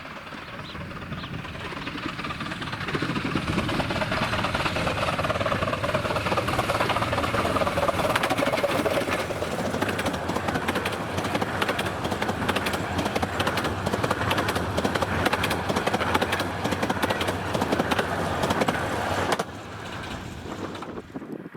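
A 15-inch gauge miniature railway train approaching and running past, a loud rush dense with rapid clicking from the wheels on the track, with a tone sliding downward part way through. The sound drops away sharply near the end.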